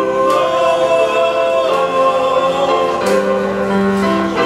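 Music: a singer holding long notes over sustained chords, with the notes changing about three seconds in.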